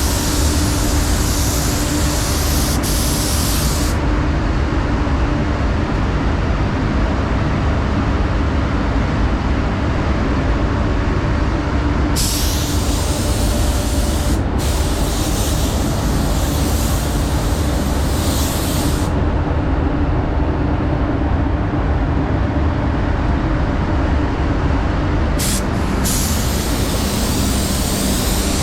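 Paint booth fans running steadily, with a spray gun's air hissing on and off in long passes: about four seconds at the start, about seven seconds midway with a short break, and again near the end.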